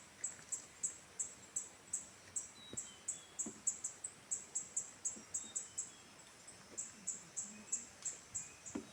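An insect chirping in short, evenly spaced high-pitched pulses, about three to four a second, with a brief pause about six seconds in. Faint, scattered bird chirps sound behind it.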